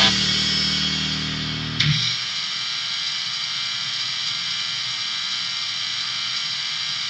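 Harsh noise music: a distorted, guitar-like low drone thins out, and after a sharp click about two seconds in a steady wall of static with high ringing tones holds, dropping away right at the end.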